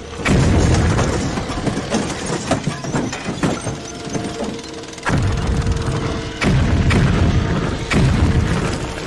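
Film battle soundtrack: heavy explosion booms, four of them, each dying away slowly, with crashing debris, over a music score holding a steady note.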